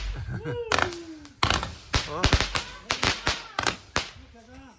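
A multi-shot consumer firework firing, with a rapid, irregular string of sharp cracks and pops as its stars shoot up.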